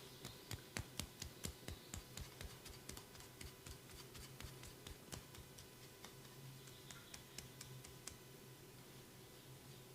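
Massage hands on skin making a run of sharp clicking snaps, about four a second and loudest in the first two seconds, then fainter and more scattered until they die away. A low steady hum runs underneath.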